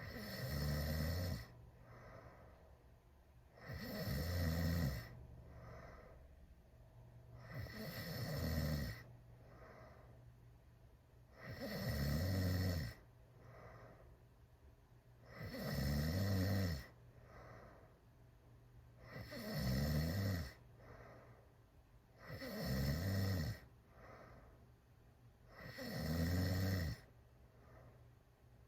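A sleeping teenager snoring loudly with mouth wide open: a rasping snore about every four seconds, each lasting about a second, with a fainter breath between snores.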